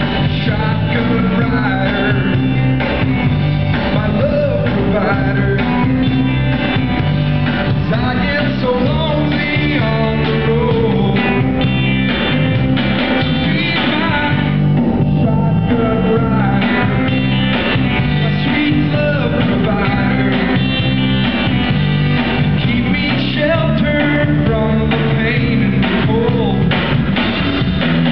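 Live rock band playing: a man singing over strummed acoustic guitar, electric guitar and drums, heard from the audience.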